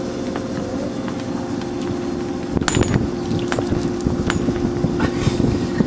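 A boy spitting a mouthful of soda over the side of a boat: a short spraying spurt about two and a half seconds in, followed by a few faint clicks. Under it runs the steady hum and rush of the small electric boat underway.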